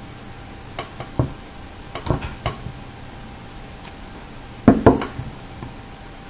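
Cat5e cable being handled and its jacket worked loose for stripping: scattered light clicks and knocks against a table, with a sharper pair of knocks about three quarters of the way in.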